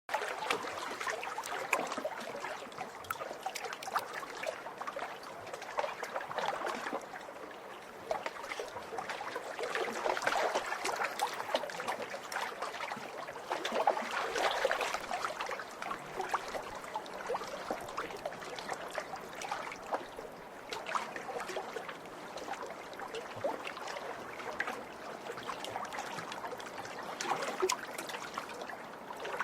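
Lake waves splashing, a continuous watery wash full of small splashes that swells louder twice, about a third and about halfway through.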